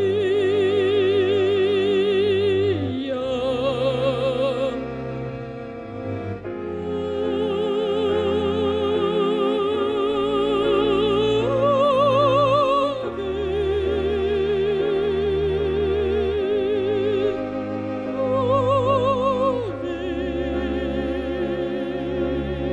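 A mezzo-soprano sings operatic music in long held notes with wide vibrato, shifting pitch every few seconds, over sustained orchestral accompaniment.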